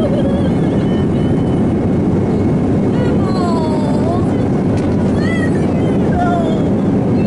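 Steady cabin noise of an airliner, heard from a window seat: the even noise of the jet engines and airflow, with people talking under it.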